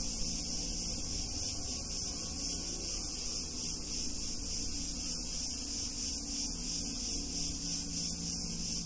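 Chorus of cicadas: a steady, high, hissing buzz that pulses slightly, with a low rumble underneath.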